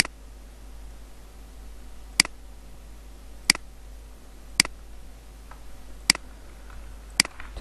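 Computer mouse button clicking about six times, single sharp clicks spaced roughly a second or so apart, over a low steady hum.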